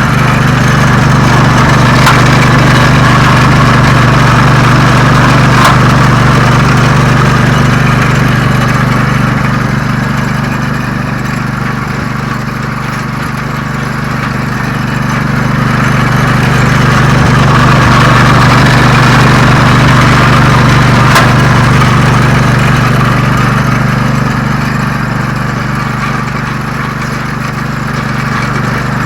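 Lucas sawmill's engine running steadily under load while its slab-flattening disc cuts across a red oak slab, the sound swelling and easing slowly as the cut goes on, with a few sharp ticks.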